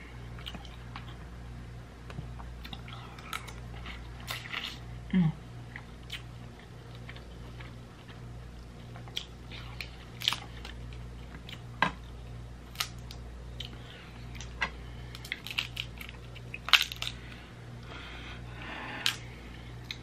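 Cooked snow crab legs being snapped and picked apart by hand: scattered sharp clicks and cracks of shell, a few louder snaps, with wet eating sounds in between.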